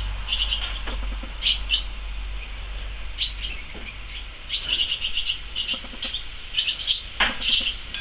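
Barn swallows twittering: clusters of short, bright chirps that come in quicker runs about halfway through and again near the end, over a low steady hum.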